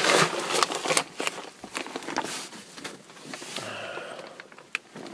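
Rustling and crackling handling noise, loudest in about the first second, then quieter with a few scattered clicks.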